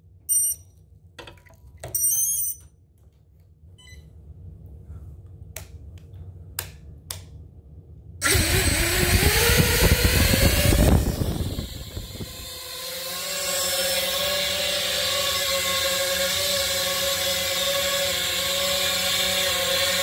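A 5-inch FPV racing quadcopter's motors spin up about eight seconds in with a loud surge of propeller noise as it lifts off, then settle into a steady hover buzz of several held tones. Before takeoff there are a few short electronic beeps and clicks.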